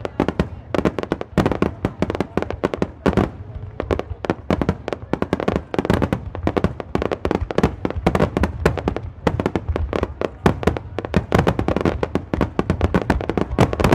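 Aerial fireworks bursting in a rapid barrage: a dense run of sharp cracks and bangs, several each second, over a low rumble.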